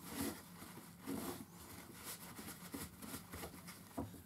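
Faint rubbing and small handling clicks as a fishing reel's small ball bearing is wiped off by hand, with a slightly sharper tick about four seconds in.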